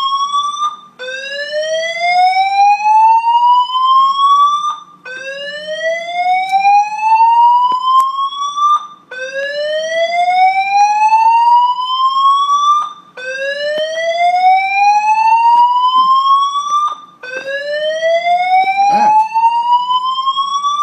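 Building fire alarm sounding a slow whoop: a loud rising tone that sweeps up over about four seconds, cuts off, and starts again, over and over.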